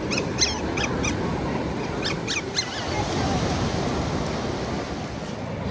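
Steady surf and wind noise at the beach, with two quick clusters of short high-pitched cries near the start and about two seconds in.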